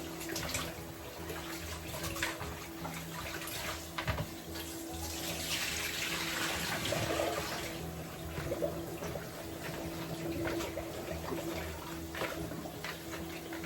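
Water from a tap running and splashing as raw chicken feet are rinsed in a sink, loudest about halfway through, with a few small knocks.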